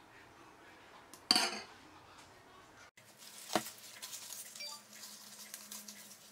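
A metal spoon clinks once against a dish about a second in, with a short ringing after it. A couple of seconds later comes a single sharp knock, then faint soft ticks of kitchen handling.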